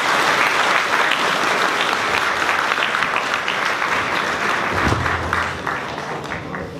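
Audience applauding, a dense patter of clapping that thins out and fades near the end, with a brief low thud about five seconds in.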